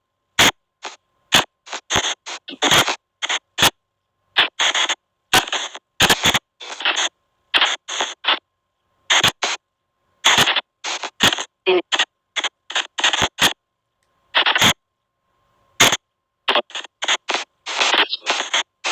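SP White Noise Box spirit-box app playing a rapid stream of short, chopped bursts of noise and garbled voice-like fragments, about two a second with abrupt silent gaps between them, over a faint steady tone.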